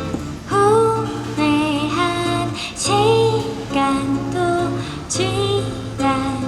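A woman singing a slow song in phrases of about a second each, over a strummed acoustic guitar.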